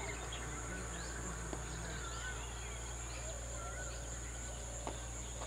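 Outdoor background of a steady high-pitched insect drone over a low hum, with a few faint short chirps.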